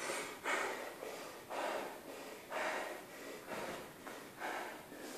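A person breathing hard from exertion, short puffs about once a second.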